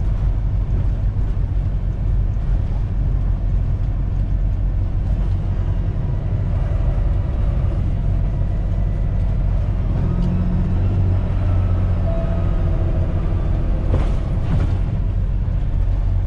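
Semi truck's diesel engine and road noise heard from inside the cab while driving: a steady low drone.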